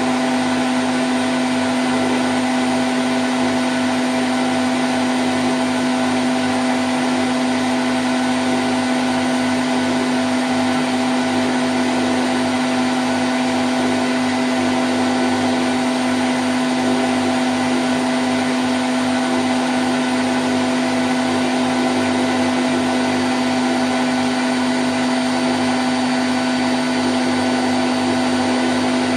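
Candy Grand O' F106 front-loading washing machine in its spin cycle at 1000 rpm: a loud, steady whirring hum with one strong low drone and a few fainter tones over an even rushing noise.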